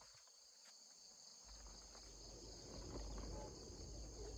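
Faint, steady chirring of insects, with a low rumble that comes in about a second and a half in and grows louder.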